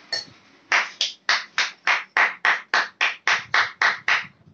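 Hand clapping: a quick, even run of about fourteen claps, roughly four a second, starting just under a second in and stopping shortly before the end.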